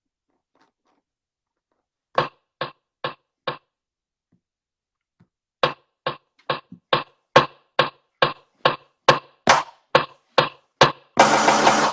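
Rhythmic knocking: four sharp knocks, a pause, then a steady run of about two knocks a second, with a short rush of noise near the end.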